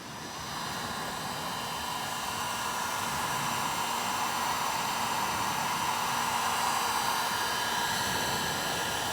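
Hot-air heat gun blowing steadily, its fan running with a constant rush and a faint whine, melting HDPE plastic into a crack in a polyethylene kayak hull.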